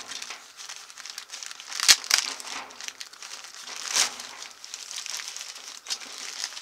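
Plastic bag crinkling and rustling as a recoil starter assembly is handled and unwrapped from it. Two sharp knocks come about two seconds in and are the loudest moment.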